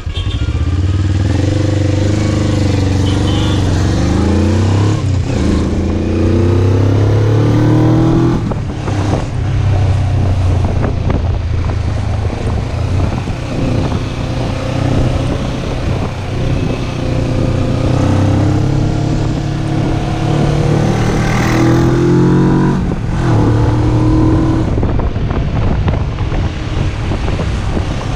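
Motorcycle engine accelerating through the gears, the revs climbing and dropping at each shift several times in the first eight seconds and again about two-thirds of the way through, with wind rush on the microphone.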